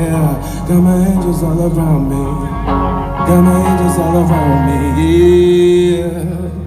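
Live band music: a male singer's wordless vocal runs over electric guitar and drums, ending in a long held note.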